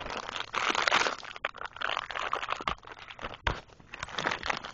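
Crinkling and rustling of plastic packaging as a Beyblade is unpacked, with a few sharp clicks of small plastic parts being handled.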